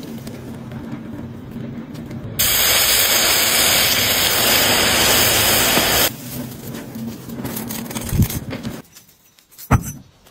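Molten metal hissing loudly as it is poured into a damp sand mould, starting about two seconds in and cutting off abruptly after about four seconds. A couple of short knocks follow near the end.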